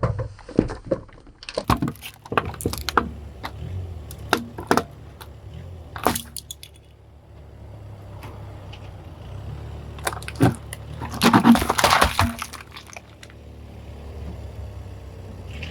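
Car tyre rolling over and crushing brittle objects, with a run of sharp cracks and snaps for the first several seconds and a dense burst of crunching about eleven seconds in, over the low hum of the car.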